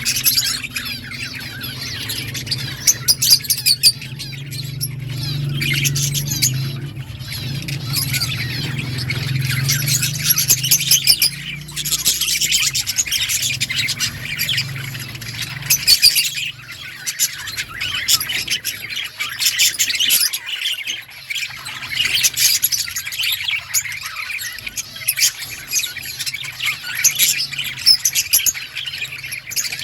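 A colony of budgerigars chirping and chattering without pause, many overlapping warbles broken by sharp squawks. A low hum sits underneath for roughly the first half, then fades.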